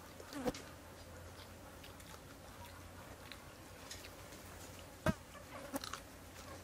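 People eating: scattered chewing and mouth clicks, with two louder smacks about half a second in and about five seconds in, over a steady low hum.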